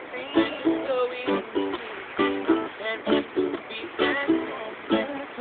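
Ukulele strummed in a steady rhythm, its chords ringing between the accented strokes.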